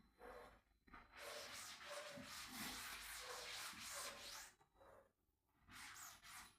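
Faint rubbing of a cleaning cloth wiping a surface: a long stretch of wiping, then a shorter one near the end.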